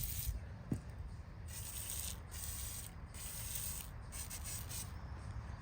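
A run of short hissing strokes, about one a second, from working at rust on the underside of a Craftsman lawnmower.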